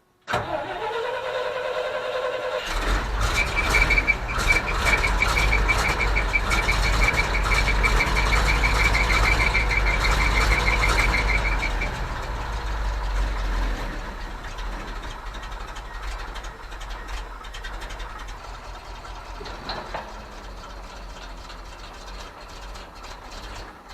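GMC C7000 dump truck engine cranking with a rising whine for about two seconds, then catching and running fast. It settles to a lower idle after about twelve seconds. A rapidly pulsing high beep sounds while the engine runs fast and stops as it slows.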